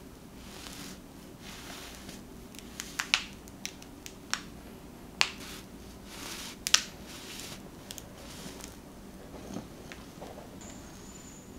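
Serrated bread knife sawing down through a chocolate cake coated in dark chocolate shavings: soft rasping strokes broken by sharp crackles and snaps of the chocolate, the loudest snap about seven seconds in.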